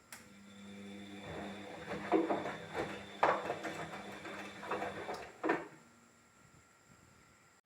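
Irregular clatter of objects being handled, with two sharp knocks, the second near the end, over a faint steady hum.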